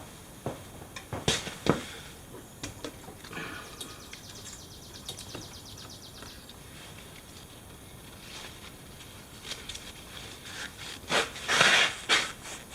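Scattered clicks and knocks of tools and parts being handled during an ATV oil change, with a quick run of fast, even ticks a few seconds in and a short, louder hissing scrape near the end.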